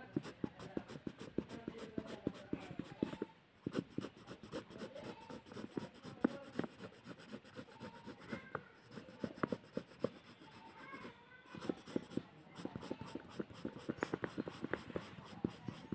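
Pencil scratching on paper in rapid, uneven shading strokes, with a brief pause about three and a half seconds in.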